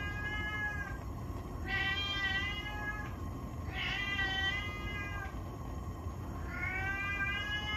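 Domestic cat meowing over and over: long, drawn-out meows of about a second and a half each, with short pauses between them, each arching up and down in pitch.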